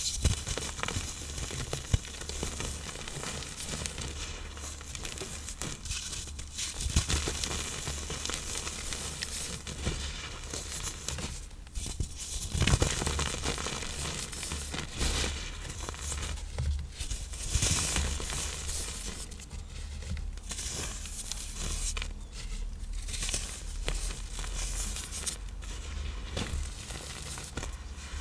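Reformed blocks of iron oxide powder and cornstarch being crushed and crumbled, a continuous dry crackling and crunching with a few sharper cracks.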